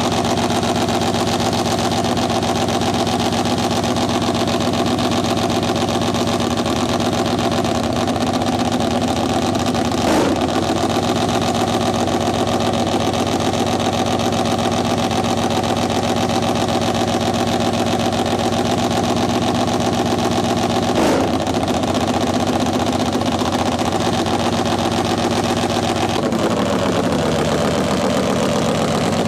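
Drag-racing motorcycle engine idling steadily, its pitch shifting slightly near the end.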